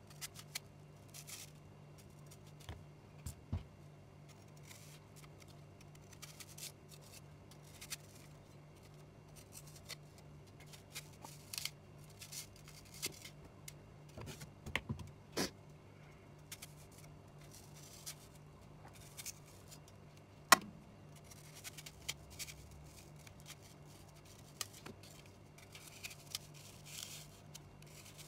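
Kitchen knife cutting an apple and cutting out its core on a wooden cutting board: scattered crisp cuts, taps of the blade on the board and short scrapes, one sharper knock about twenty seconds in. A faint steady low hum runs underneath.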